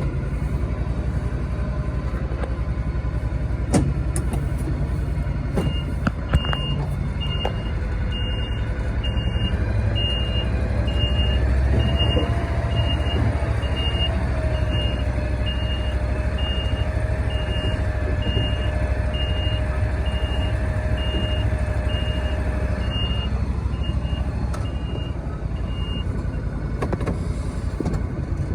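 John Deere Gator utility vehicle's engine running steadily. From about six seconds in, its reverse alarm beeps evenly, a little more than once a second, for about twenty seconds, with a faint whine under it while the vehicle backs up.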